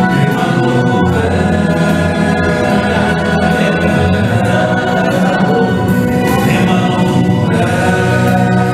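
Male vocal quartet singing a gospel song in harmony through microphones, voices held steadily without a break.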